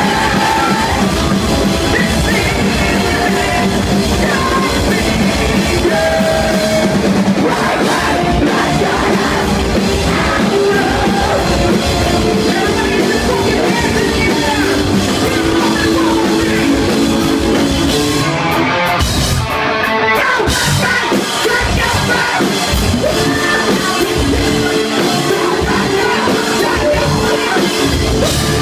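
Live post-hardcore rock band playing loud, with distorted guitars, a drum kit and vocals. The high end drops out briefly about two-thirds of the way through.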